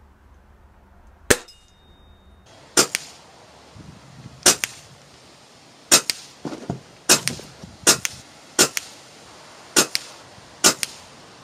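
A run of nine sharp shots from a junior break-barrel air rifle, about a second or so apart, some followed by a fainter knock.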